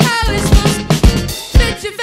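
Funk-pop band music with a woman singing lead over bass and punchy kick-drum hits.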